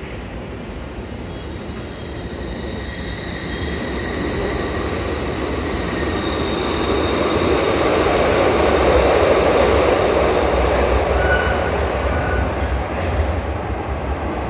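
A Glasgow Subway Stadler-built train running on the rails, a steady rumble that grows louder over the first several seconds and then holds. Thin whining tones sound over it, one of them rising in pitch about halfway through.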